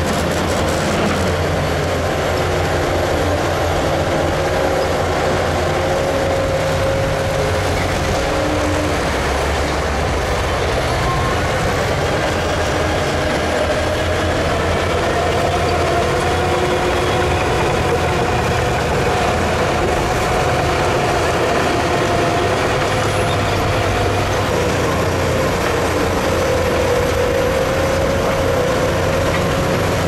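Heavy dump truck's diesel engine running steadily, with a whine that wavers in pitch. In the second half the tipper body is raised to dump its load of rock and soil.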